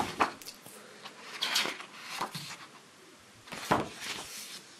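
Pages of a large book being turned by hand: several papery swishes and rustles a second or so apart, the sharpest about a second before the end.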